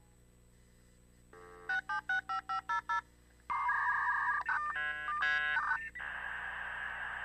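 Dial-up modem connecting: after about a second, a brief dial tone and about seven quick touch-tone digits, then warbling handshake tones that turn into a steady hiss.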